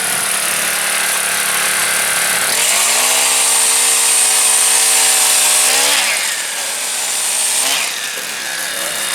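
A small gas engine, most likely a power ice auger, running with a hissing, grinding noise. About two and a half seconds in it revs up to a higher steady pitch, holds there for about three seconds, then drops back about six seconds in.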